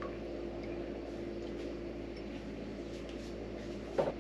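Faint steady room hum with a thin constant tone. About four seconds in, one short sharp clink as a metal ladle knocks against the rim of a stainless steel pot.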